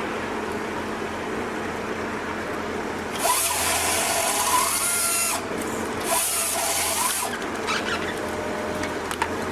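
Power saw cutting in two bursts, the first about two seconds long and the second about one, over a steady machine drone.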